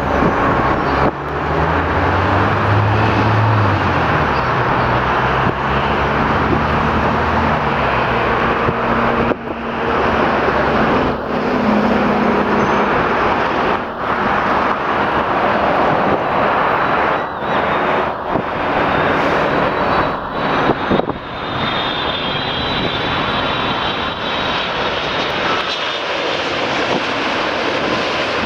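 Boeing 787-8 Dreamliner jet airliner on final approach, its engines giving a steady loud rushing roar as it comes in low. A low drone is heard in the first few seconds, and a thin high whine from the engines is heard over the later part.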